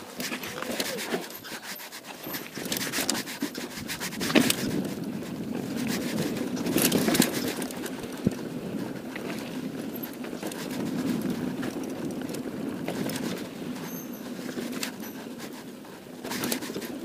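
Mountain bike descending fast on a loose dry dirt trail: tyres rolling and crunching over dirt, stones and dry leaves, with repeated sharp knocks and rattles from the bike over bumps, loudest about four and seven seconds in.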